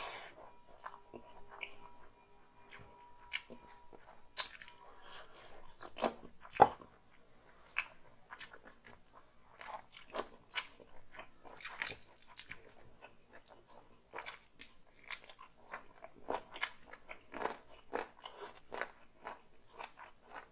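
A person chewing and smacking their lips while eating chicken curry and rice by hand, giving many short, irregular mouth clicks, with one louder click about six and a half seconds in.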